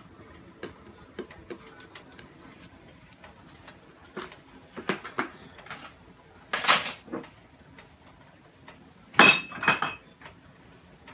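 Kitchen handling noises: scattered light clicks and knocks of bowls and containers being moved on a countertop. Louder clatters come about halfway through and near the end, the last with a brief ringing clink.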